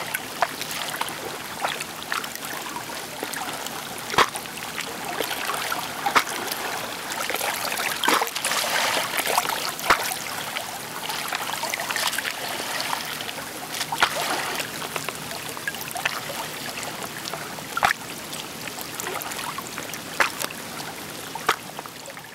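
Small sea waves lapping and splashing at the shoreline, a steady wash of water with sharp splashes every couple of seconds.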